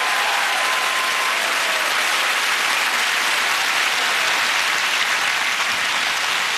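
Large studio audience applauding, a dense, steady clapping.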